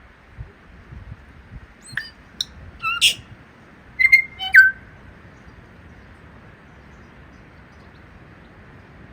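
A tui singing: one short phrase of sharp clicks and clear whistled notes, some sliding in pitch, between about two and five seconds in, over a steady background hiss.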